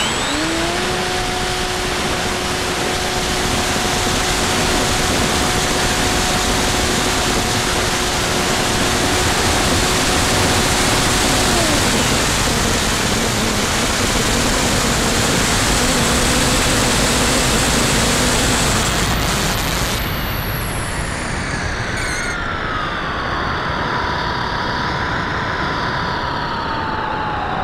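Airflow rushing over the onboard camera's microphone of a Bixler 2 RC plane in flight, with the brushless electric motor's whine. The whine rises to a steady pitch at the start, drops lower about twelve seconds in, and near the end a higher whine glides steadily downward.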